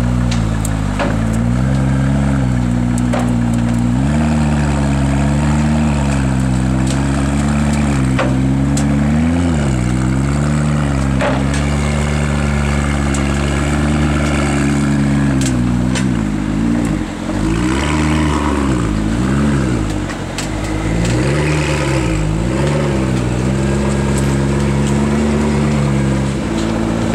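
McLaren P1's 3.8-litre V8 running at low revs as the car creeps up a ramp into a transporter, the revs wavering gently. In the second half the revs rise and fall several times in quick succession.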